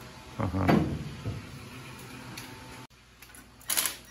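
Metal sockets and a steel tool-chest drawer clattering, then a cordless driver running in one short burst near the end as it tightens a bolt on a motorcycle's new exhaust pipe.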